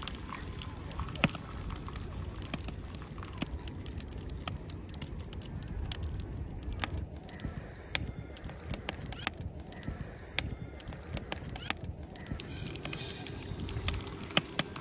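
Wood fire crackling in a steel fire pit, with sharp pops scattered throughout, over a low steady rumble.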